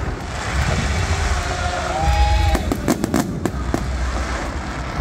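Aerial fireworks display: deep booms from the shell bursts roll on throughout, with a short high whistle about two seconds in. A dense run of sharp crackles follows, as glittering crackle stars go off about three seconds in.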